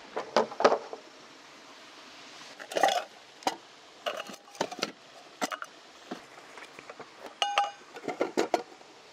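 Small items of camping gear being handled and set down: irregular knocks and clinks, with one short ringing clink about seven and a half seconds in.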